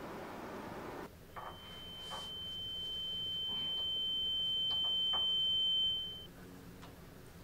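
A single steady high-pitched electronic tone, like a ringing beep, starting about a second in. It grows slowly louder for about five seconds, then fades away quickly. A soft hiss comes before it and stops abruptly just before the tone.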